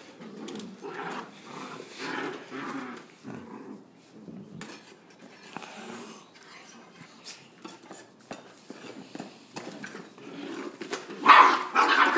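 Two black-and-tan puppies playing tug-of-war over a chew toy: low play-growling throughout, with their claws clicking and scraping on the stone tiles. A louder outburst comes near the end.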